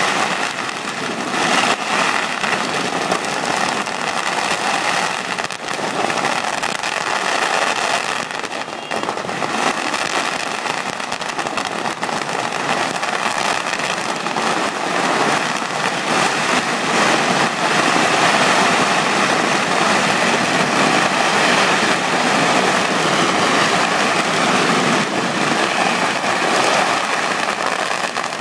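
Long strings of firecrackers going off in a dense, unbroken crackle that hardly lets up.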